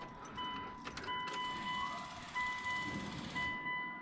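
Car dashboard warning chime beeping repeatedly, a steady tone about once a second, sounding with the key in the on position and the driver's door open. A few quick clicks come about a second in.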